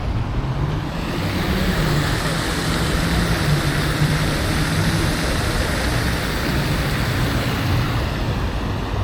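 A vehicle going by: a rushing noise over a low hum that swells from about a second in and eases off near the end.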